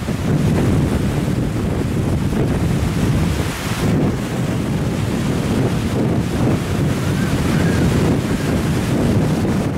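Gusty wind buffeting the microphone over the steady wash of choppy sea waves.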